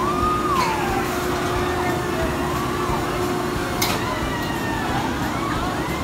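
Riders on amusement-park thrill rides screaming: several overlapping high screams that rise, hold and fall, over a steady ride hum that stops about four seconds in. A short sharp hiss cuts through near the four-second mark.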